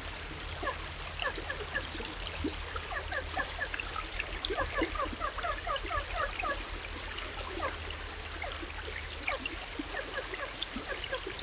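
Shallow rocky stream running over and between stones: a steady wash of water with a dense, irregular scatter of small bubbling plinks.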